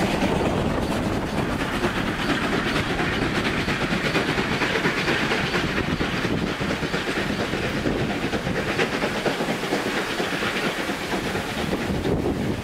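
Heritage steam train rolling past: wooden passenger carriages with wheels clacking over rail joints, then the Y class steam locomotive Y112 on the rear going by, with some hiss of steam, a steady rumble throughout.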